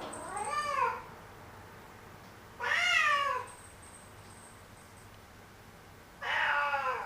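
Domestic cat meowing three times, each a drawn-out call of about a second that falls in pitch at its end: grumbling, complaining meows.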